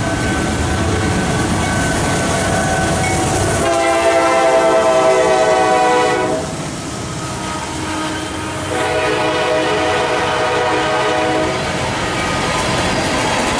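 Norfolk Southern freight train passing close by: diesel locomotives rumbling, with two long blasts of the multi-tone air horn, about four and nine seconds in, each lasting two to three seconds, then freight cars rolling past.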